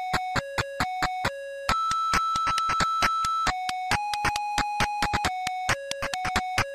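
Simple retro video-game-style electronic beep tune: clean buzzy tones hop quickly between two notes at about four a second, with a click at each change. About two seconds in it holds a long higher note, then a middle note, before the two-note hopping returns.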